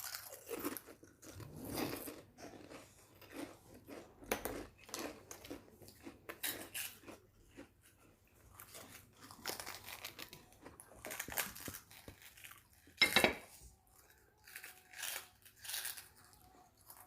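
Someone chewing crunchy fried crackers up close, giving irregular crunches with short pauses between bites. The loudest crunch comes about 13 seconds in.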